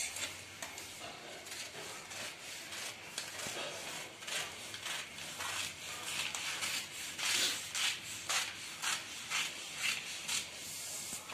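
Large scissors cutting through a four-layer fold of newspaper: soft paper rustling at first, then from about four seconds in a run of crisp crunching snips, about two a second.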